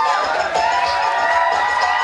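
Dance music playing through the hall's speakers while an audience cheers and shouts.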